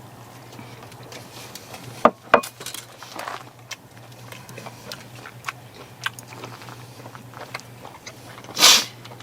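A person eating grilled meat: quiet chewing with scattered small clicks, two sharp ones about two seconds in, and a short loud breathy rush near the end, over a steady low hum.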